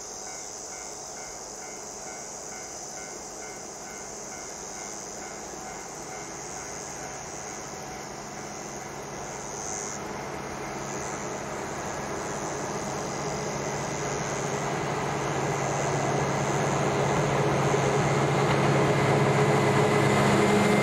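JR Freight DF200 diesel-electric locomotive approaching with a container freight train, its engine drone growing steadily louder through the second half.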